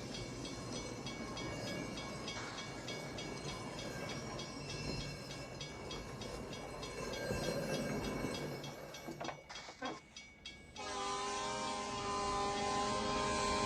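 Train rumbling along the track with a fast, even ticking. After a short dip, a train horn sounds a steady multi-note chord from about 11 seconds in.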